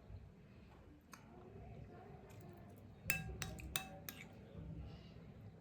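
Utensils clinking against dishes: a few sharp, briefly ringing clinks about three seconds in, with lighter taps before them.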